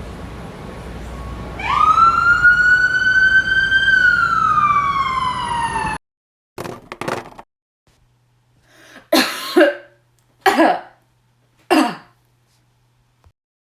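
A siren gives one wail over steady traffic noise, rising at about two seconds, holding, then falling away; it cuts off suddenly. After a silence, a person coughs and clears their throat in several short, separate bursts.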